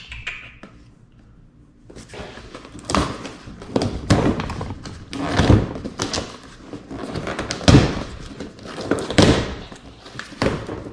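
Packaging and tackle being handled: repeated thumps, knocks and rustling as packs are moved and set down. It begins about two seconds in.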